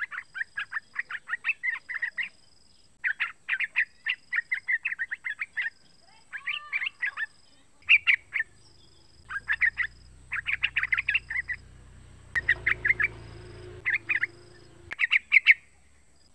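Young yellow-vented bulbul (trucukan) singing: repeated bursts of rapid, chattering notes, each a second or two long, with short pauses between. A faint low hum runs underneath from about halfway in until near the end.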